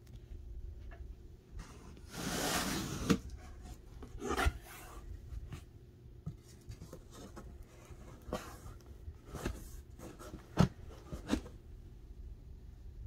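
Cardboard box being opened by hand: the flaps and lid scrape and rub, with a long scratchy rustle about two seconds in, followed by a string of short sharp knocks and rustles as the box is handled.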